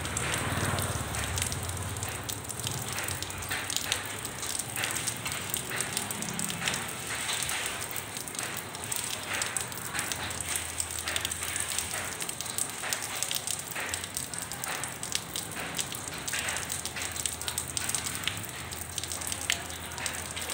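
Rain falling into a puddle on hard ground: many separate drop splashes over a steady hiss.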